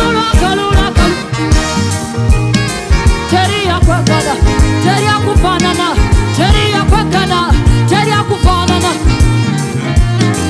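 Live gospel worship band playing an upbeat groove, with a steady drum-kit beat, bass guitar and keyboards, and sung melody lines over it.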